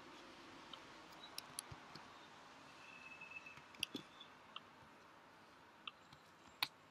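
Faint computer mouse clicks, about nine short clicks spread unevenly, the sharpest about two-thirds of the way through and just before the end, over a low room hiss.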